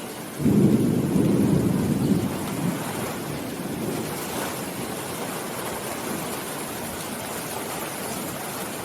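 Steady rain with a roll of thunder that breaks in suddenly about half a second in, rumbles loudly for a couple of seconds and dies away.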